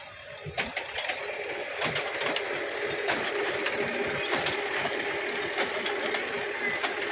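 Tractor-mounted onion planter running: a rapid, continuous mechanical clatter of its moving parts over a steady engine hum.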